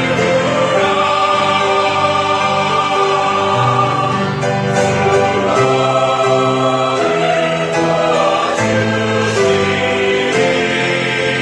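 Church choir singing a sacred anthem in parts, holding notes that change every second or so.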